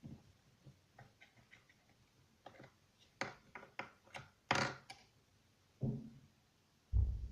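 Handling noises from objects being moved and set down: a run of light clicks and taps, a handful of sharper scraping strokes in the middle, and two low thumps near the end.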